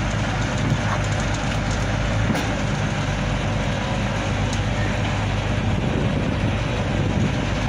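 Crane's engine running steadily with a low drone as it hoists a wooden boat in slings.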